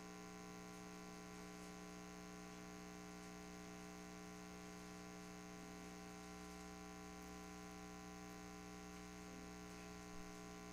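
Steady electrical mains hum, a low buzz made of many evenly spaced tones, with little else above it: near silence otherwise.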